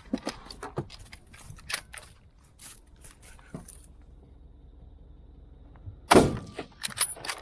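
A single rifle shot about six seconds in, sudden and loud with a short echo, after a few seconds of small clicks and rustling.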